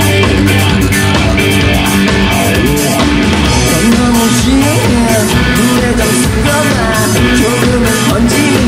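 Rock band playing live: electric guitars, bass guitar and drums. A lead vocal comes in about halfway through.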